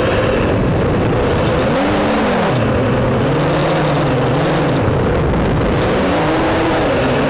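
A drone's electric motors and propellers running close to the microphone, with a steady high hum and lower tones that rise and fall several times as the throttle changes, over a rushing noise.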